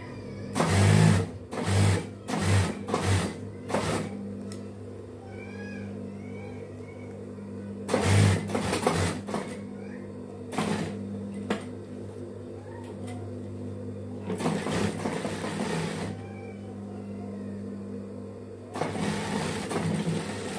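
Industrial lockstitch sewing machine stitching in short stop-start bursts, from a fraction of a second to about a second and a half each, with its motor humming steadily in between.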